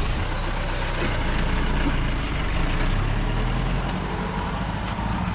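Jeep engine running loud and steady close by as the vehicle moves off.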